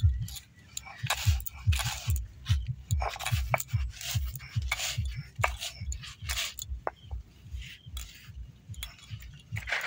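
Stone roller rolled back and forth over a flat stone grinding slab (shil-nora), crushing dry biscuits into crumbs: a quick, steady rhythm of dull stone-on-stone thumps with gritty crunching and scraping.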